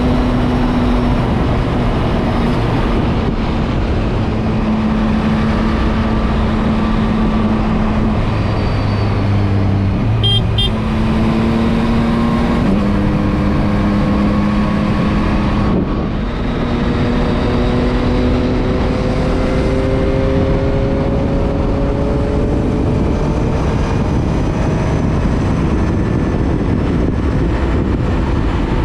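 Yamaha MT-09's three-cylinder engine running under way at speed beneath loud, steady wind rush. The engine pitch drops and jumps a couple of times around ten to thirteen seconds in, then climbs slowly as it accelerates; a brief high beep sounds about ten seconds in.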